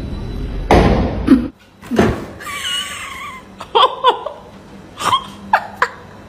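A cat giving several short meows, after a noisy rustle and a single thud.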